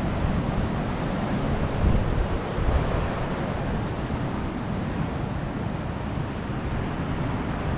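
Ocean surf washing steadily on the shore, mixed with wind buffeting the microphone in gusts that are strongest about two seconds in.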